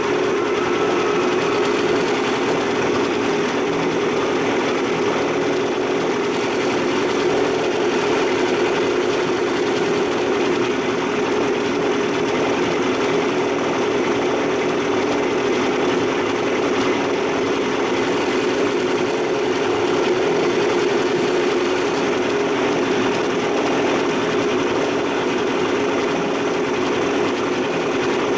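1988 Evinrude 55 HP commercial two-stroke outboard motor running steadily.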